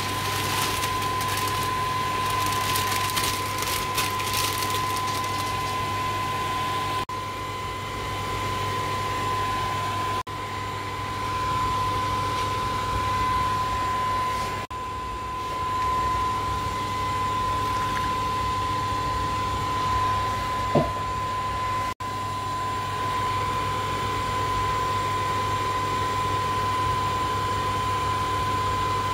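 Steady mechanical drone with a constant high whine, unbroken across several cuts. In the first few seconds there is an added hiss of water as green beans go into a pot of boiling water.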